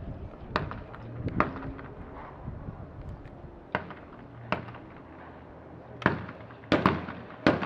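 12-gauge shotgun shots on a skeet field: a series of sharp reports of differing loudness, the loudest about a second and a half in and near the end, two of them close together late on.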